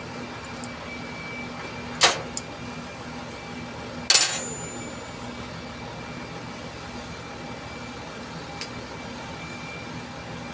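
Two sharp metal clanks about two seconds apart, the second ringing briefly, from tools and parts being handled in a crawler crane's engine compartment, then a small click later on. A steady low mechanical hum runs underneath.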